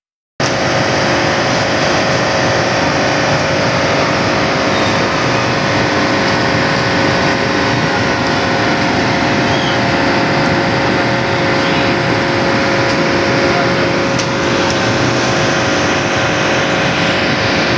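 Steady city street noise of motorbike and car traffic, with a constant hum underneath, cutting in abruptly about half a second in.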